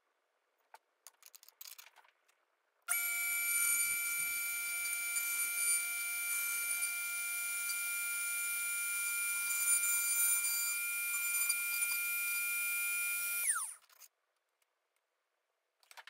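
Dremel rotary tool running steadily with a high whine, driving a 1.5 mm end mill across a key blank in a 3D-printed key-copying jig. After about ten seconds it is switched off and its pitch falls as it spins down. A few light handling clicks come before it starts.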